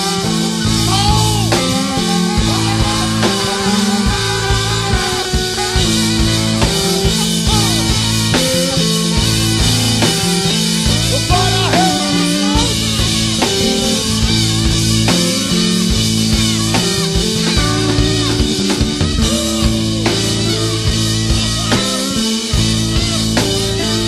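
Live band playing an instrumental passage: drum kit and a steady bass line under a lead instrument bending its notes.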